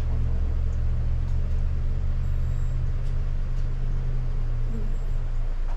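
A car engine idling with a steady low hum, which drops away about five and a half seconds in.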